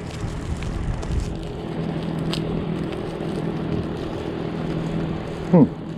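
Steady low mechanical hum, like a motor running, with a few light handling knocks and clicks.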